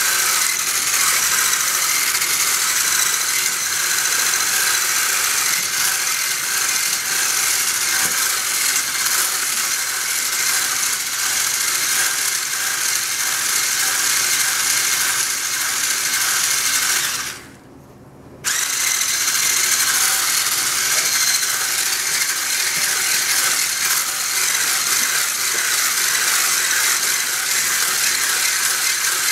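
Handheld electric whisk running steadily, its single wire whisk beating cake batter in a metal saucepan. It stops for about a second around two-thirds of the way through, then starts again.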